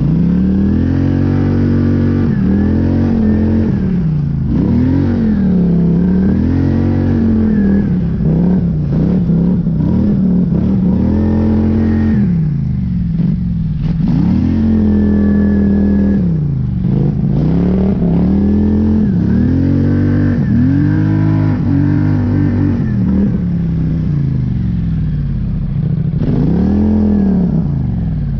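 Polaris Scrambler 850 ATV's twin-cylinder engine revving up and falling back again and again, the throttle worked on and off as the quad pushes through deep snow.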